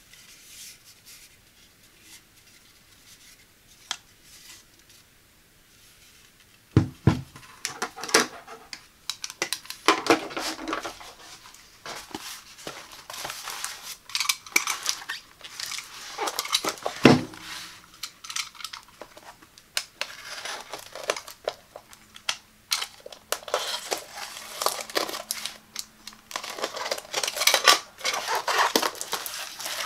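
Hands handling a knife block and a taped cardboard box: two loud knocks about seven and seventeen seconds in, with clattering and scraping in between, then crinkling and tearing of packing tape on the cardboard near the end.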